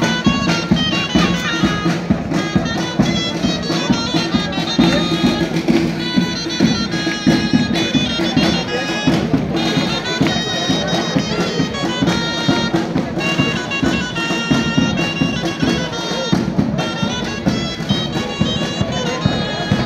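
Music from wind instruments: a melody played over a steady low drone.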